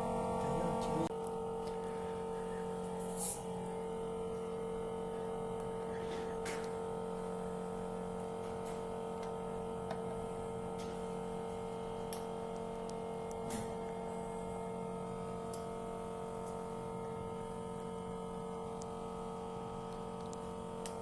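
Steady electric hum made of several even, unchanging tones, with a few faint clicks, from a glue-removal tool working old adhesive off an iPhone X screen.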